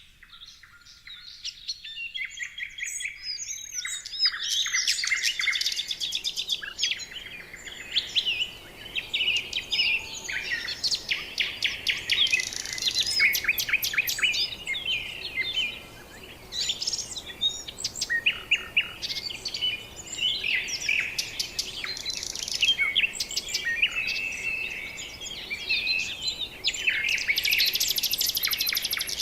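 A chorus of many birds chirping, trilling and whistling over one another, fading in over the first few seconds.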